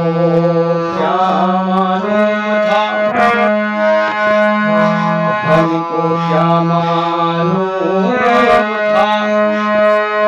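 Harmonium played solo: a reedy melody of held notes over a sustained low note that shifts pitch a few times.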